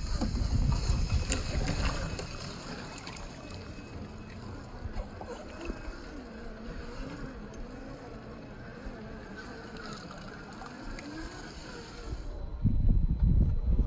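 Wind buffeting the microphone over running stream water, heaviest in the first two seconds and again near the end. Through the quieter middle, a faint whine from the Traxxas TRX-4 crawler's electric motor rises and falls in pitch.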